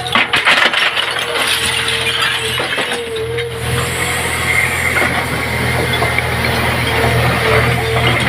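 Diesel engine of a heavy construction machine running steadily, with a quick run of metallic clinks and clanks in the first second.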